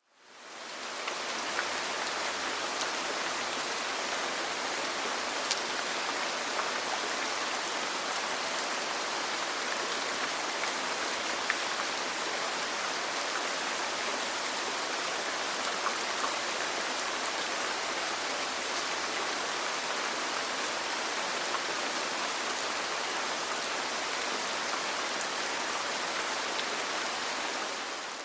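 Steady rain falling on a roof, an even hiss with occasional faint ticks of single drops. It fades in over about a second and fades out near the end.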